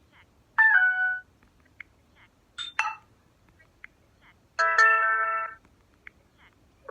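LG K92 5G smartphone notification tones played one after another. First a short chime of a few notes about half a second in, then a quick two-note blip near the three-second mark, then a held chord lasting about a second near the end.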